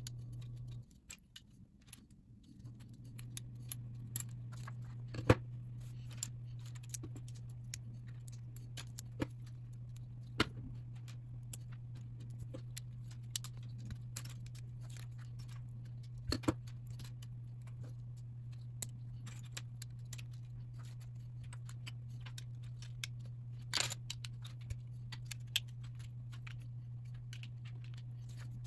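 LEGO plastic bricks being handled and pressed together: scattered sharp clicks and small rattles of loose pieces, over a steady low hum that drops out for a moment about a second in.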